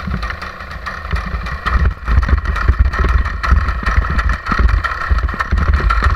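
Paramotor engine and propeller running steadily during launch as the wing is pulled up overhead, getting louder about two seconds in, with uneven low rumble under it.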